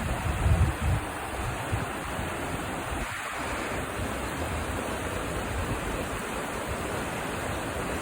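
Swift River rapids at Lower Falls rushing steadily over rocks, a dense, even wash of water noise. Low rumbling gusts of wind hit the microphone in the first second.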